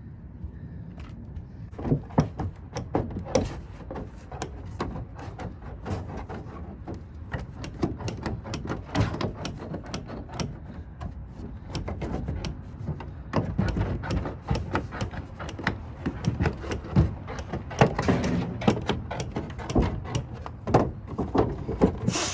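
Irregular knocking, clattering and scraping of hand-tool work, as a badly installed air-conditioning plenum box clogged with caulking is pried and scraped loose. A steady low hum runs underneath, and the strongest knocks come about two seconds in, around eighteen seconds and just before the end.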